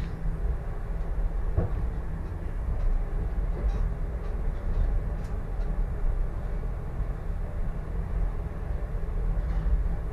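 Solaris Tramino S105p tram running along the track at about 40 km/h, a steady low rumble heard from inside the driver's cab, with a faint click about a second and a half in.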